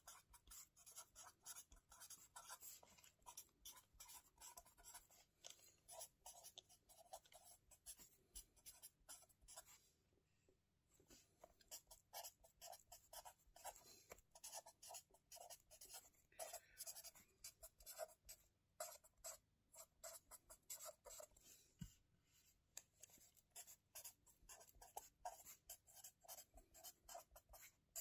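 Quiet pen-on-paper handwriting in a spiral-bound lined notebook: quick scratching strokes of the pen tip, with a short pause about ten seconds in before the writing resumes.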